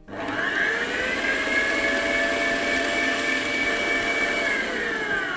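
Electric stand mixer running, beating cake batter with flour being worked in. The motor whine rises as it starts, holds steady, then falls away as it is switched off near the end.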